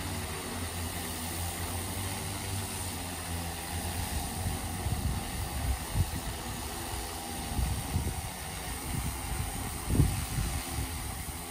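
Hexacopter on a DJI E2000 motor-and-propeller propulsion system hovering low, its rotors giving a steady droning hum. Low rumbling gusts of air buffet the microphone about five, eight and ten seconds in, the loudest near ten seconds.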